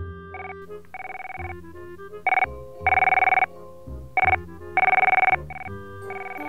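Electronic office desk telephone ringing in a repeating short-then-long warbling pattern, about one ring pair every two seconds, with the middle rings loudest. Background music plays underneath.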